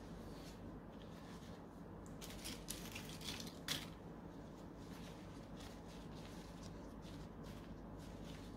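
Aluminium foil wrapper of a cheese triangle crinkling under a plastic-gloved hand, a cluster of sharp crinkles about two to four seconds in, over a steady low hum.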